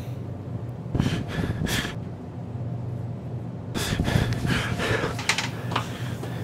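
A man panting and gasping hard from running, in short rough breaths that come in two spells, over a low steady hum.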